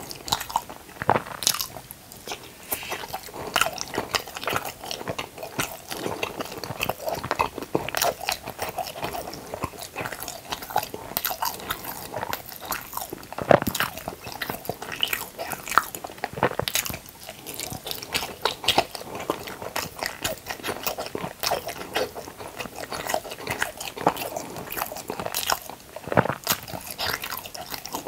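Close-miked eating: repeated crunchy bites and chewing, a dense, irregular run of crisp snaps and crackles.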